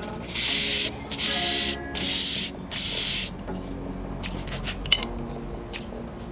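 Four strokes of a steel knife blade scraped along metal in quick succession, each a hiss lasting under a second, as the blade is sharpened. Quiet background music plays underneath.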